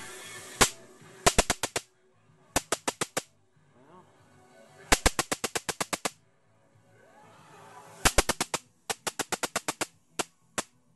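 High-voltage arcing in a Zenith 25MC36 television's high-voltage section: rapid trains of sharp snapping cracks, about eight to ten a second, coming in bursts of half a second to a second, several times over. The high voltage sits at about 28 kilovolts, too high with a solid-state rectifier in place of the rectifier tube, and the owner calls it a definite high-voltage regulation problem, with leakage everywhere.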